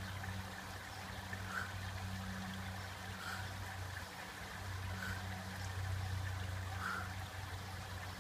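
Water trickling steadily over an infinity pool's overflow edge, over a steady low hum, with faint short sounds recurring about every second and a half to two seconds.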